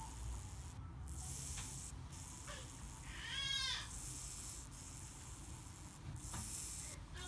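Nikon F slow-speed governor, a small clockwork gear-train escapement, buzzing in short runs about a second long as its lever is tripped again and again by hand, freshly lubricated and running smoothly. About halfway through comes a brief wavering whine.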